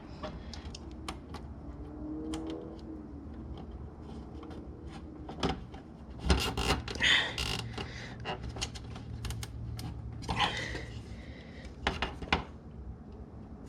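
Hand work on motorcycle plastic bodywork while a zip tie is fitted: scattered plastic clicks and rubbing, with a few short rasping bursts about six, ten and twelve seconds in.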